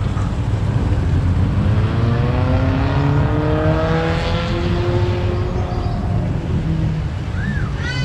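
A motor vehicle passing on the road, its engine note rising and the tyre hiss swelling to a peak around the middle, over a steady low rumble.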